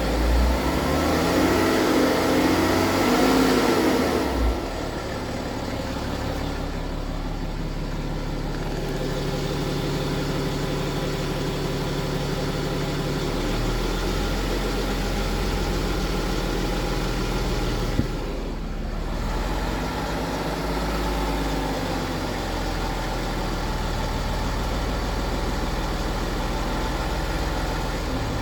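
BMW N57 straight-six diesel engine running, louder and unsettled for the first four seconds, then settling into a steady idle. The engine carries the noise attributed to a worn timing chain. A single sharp click comes about 18 seconds in.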